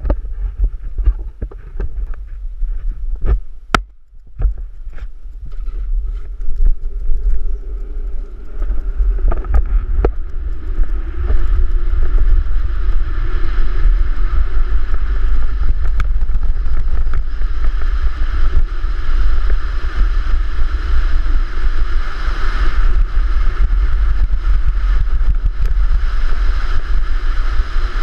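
Luge sled running down a bare concrete track, its runners rumbling on the concrete under heavy wind buffeting on the helmet camera. Sharp knocks come through in the first ten seconds, then the rolling noise grows louder and steadier from about eleven seconds in.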